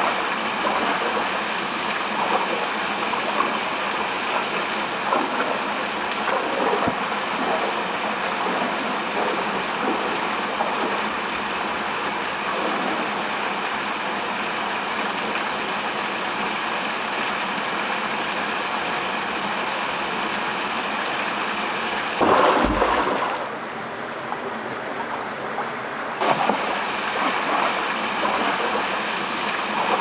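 Stream water running over rocks into a pool, a steady even rush. About two-thirds of the way through there is a brief louder bump with a low rumble, then the rush is a little quieter for a few seconds.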